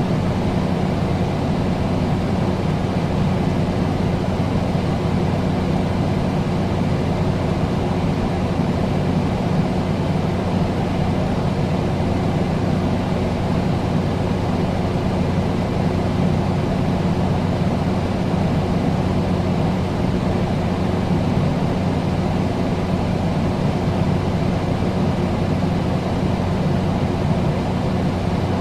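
Air conditioner running steadily: an even rush of airflow over a constant low hum.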